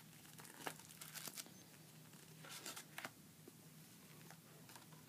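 Paper pages of a ring-bound handmade junk journal rustling and crinkling as they are handled and turned, in a few brief, faint bursts.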